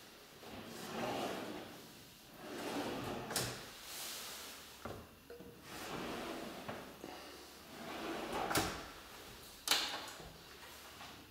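Kitchen cabinet drawers sliding out and back on their runners several times, each slide a short rushing sound, with a few sharp knocks as the drawers stop.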